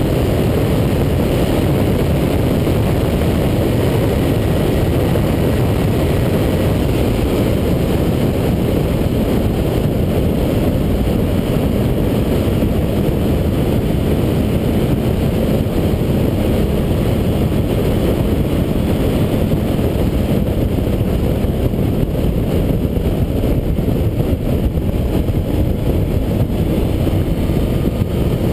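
Steady rush of wind and road noise at motorway speed on the handlebar-mounted camera, with the Suzuki B-King's inline-four engine running underneath at a constant cruise.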